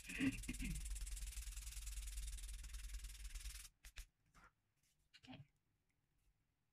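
Sandpaper on a flat sanding tool rasping steadily against the edge of a small 3D-printed plastic piece, stopping abruptly about three and a half seconds in. A few faint clicks of handling follow.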